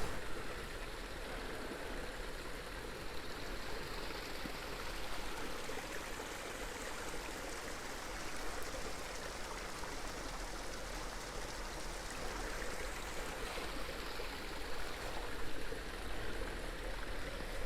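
A small woodland creek flowing steadily.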